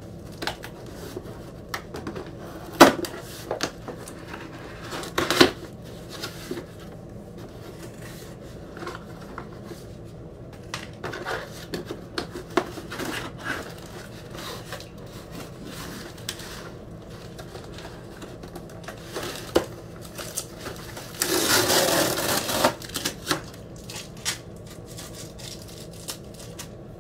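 A cardboard record mailer being handled and opened by hand: scattered taps, knocks and scrapes, with a louder rush of rustling and scraping lasting over a second about two-thirds of the way through.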